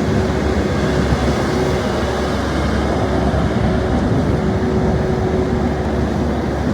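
Diesel engine of a Doosan DX140LCR-3 15-ton crawler excavator running steadily, a dense low rumble with a faint steady whine over it.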